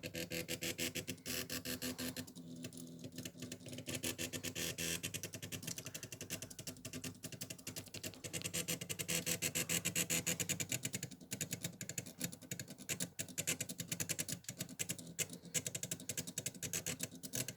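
Small homemade two-axis CNC drawing machine running a job: its stepper motors tick and buzz in rapid, uneven pulses over a steady low hum as the pen is moved about and scratches across the paper.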